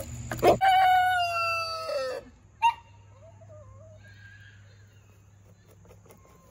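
A rooster crowing, one long call sliding down in pitch and breaking off about two seconds in, followed by a short sharp squawk and a few faint, softer chicken calls.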